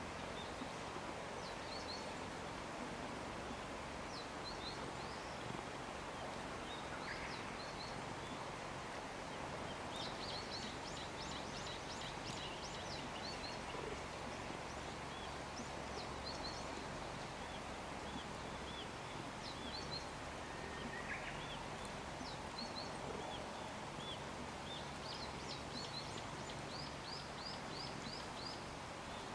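Open-air countryside ambience: a steady hush with small birds chirping on and off, short high calls that come in quick runs a few times, most busily about a third of the way in and near the end.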